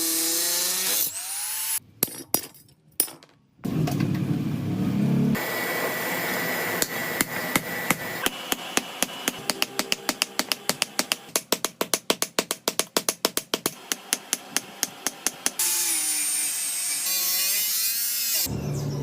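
A hammer striking metal in rapid, regular blows, about four or five a second, for several seconds in the middle. Before and after the hammering come abruptly cut stretches of steady hissing power-tool noise.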